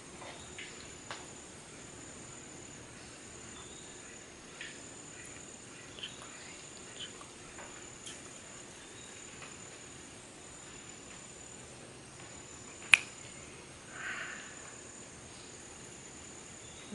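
Steady high-pitched drone of jungle insects such as crickets, with scattered faint ticks. A single sharp click about 13 seconds in, followed by a brief soft noise.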